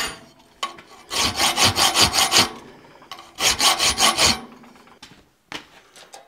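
A 10-inch half-round hand file rasping across forged steel held in a vise, cutting filed lines in two runs of quick, short back-and-forth strokes. A single light knock near the end.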